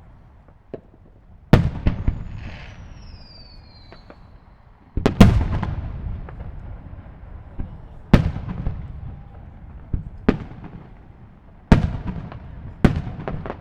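Firework shells bursting in a display: a string of sharp booms a second or more apart, the loudest about five seconds in, each followed by a long rolling echo. A faint falling whistle sounds between two and four seconds in.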